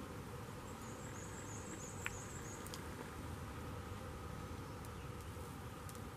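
Quiet spring woodland ambience with a steady low hiss; about a second in, a faint high, thin trill of short notes runs for about two seconds, with one faint click in the middle.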